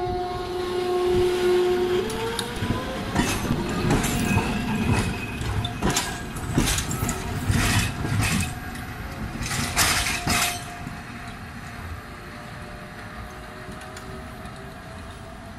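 Hakodate City Tram 3000-series streetcar passing through a curved track junction. Its electric motor whine rises in pitch about two seconds in, then the wheels clack sharply over the points and rail joints for several seconds before the sound fades as the car moves off.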